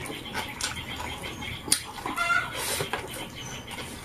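A chicken clucking briefly about two seconds in, over the soft clicks and smacks of people eating with their hands.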